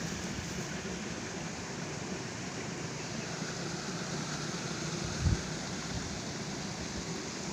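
Steady rushing background noise, with one short low thump about five seconds in.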